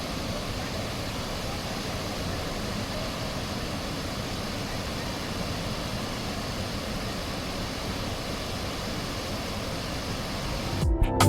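Waterfall rushing, a steady even roar of falling water. Music comes in near the end.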